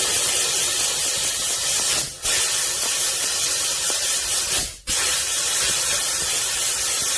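Steady, loud hiss of hot, high-pressure steam jetting from an 11-litre steam thawer's nozzle onto a car seat. The jet cuts out briefly twice, about two seconds in and again near five seconds.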